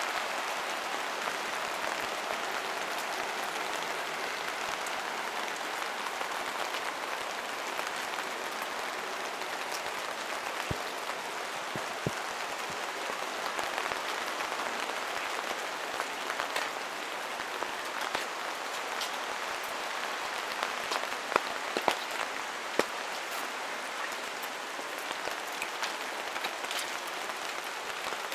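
Steady rain falling through the forest, a continuous patter with scattered louder drips and drops landing close by, a few of them sharper about three quarters of the way through.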